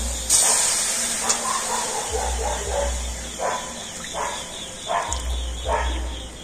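Milk poured from a glass bowl splashes into an aluminium kadai of dry-fried semolina. A dog barks repeatedly, roughly once a second, through the second half.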